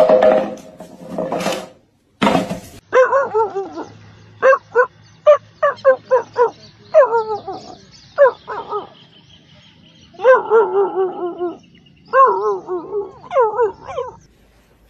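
Dogs barking in a run of short, sharp yelps, some drawn out into longer wavering whines near the end. A few loud noisy bursts come first.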